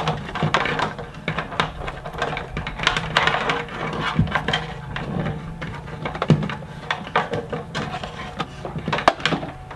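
Handling noise: rustling and rubbing with scattered light clicks and knocks, as a flexible plumbing hose and a light's cable are fed down through the top opening of an urn fountain.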